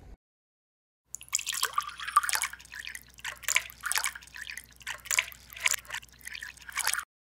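Water dripping and splashing in repeated spurts, about two a second. It starts about a second in and cuts off suddenly near the end.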